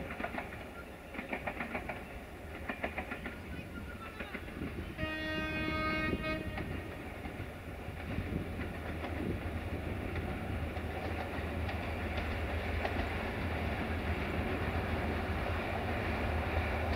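Diesel locomotive approaching with a passenger train: rapid clicking in the first few seconds, then a single horn blast of about a second and a half about five seconds in, followed by the engine's low hum and the rumble of the train growing steadily louder as it nears.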